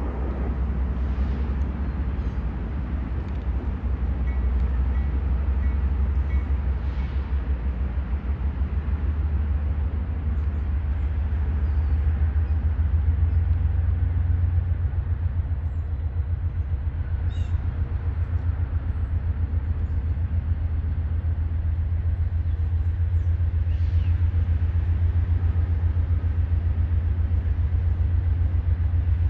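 Norfolk Southern diesel freight locomotives on a coal train throttling up from a stop: a deep, pulsing engine drone that grows louder partway through as the turbochargers spool up, with a faint high whistle joining in.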